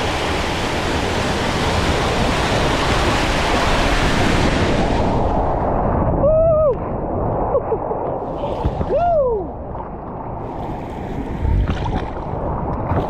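Rushing, splashing water, which turns sharply muffled about five seconds in; two short rising-then-falling calls, like muffled voices, sound after that.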